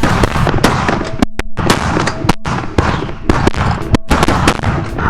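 Shotguns firing in rapid, overlapping volleys from several hunters shooting at snow geese, many shots a second with hardly a break.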